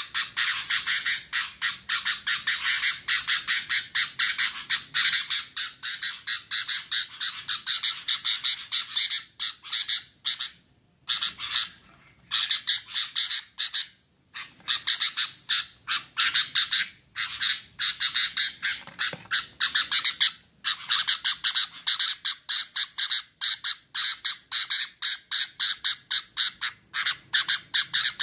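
Female sooty-headed bulbul (kutilang) giving rapid, harsh, repeated chattering calls, about four a second, in long runs broken by a few brief pauses.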